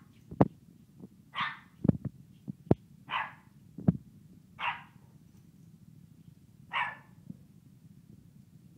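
Shih Tzu puppy barking in short single yaps, four of them spaced a second or two apart. Several sharp knocks, the loudest sounds, fall between the barks in the first four seconds.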